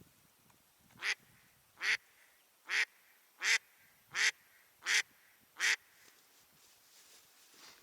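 Live hen mallard decoy duck quacking a run of seven loud, evenly spaced quacks, about one every 0.7 seconds.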